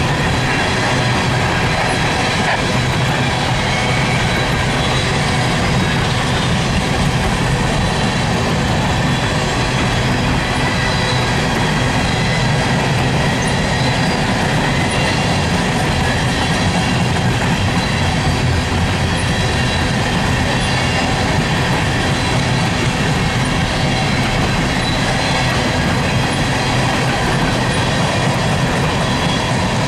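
Empty coal gondolas of a freight train rolling past, their steel wheels making a steady rolling noise on the rails. A few faint, steady high-pitched tones sit over the rolling noise.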